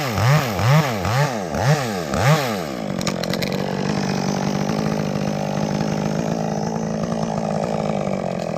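Chainsaw revved in quick repeated bursts, about two or three a second, then running at one steady speed for several seconds, as a rigged maple piece is cut.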